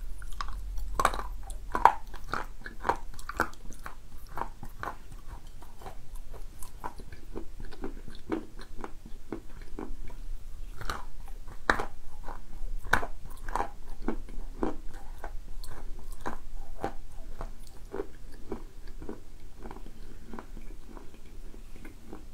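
Close-up biting and chewing of a piece of 'Anonim' edible clay: repeated crisp crunches and small crackles as it breaks up between the teeth.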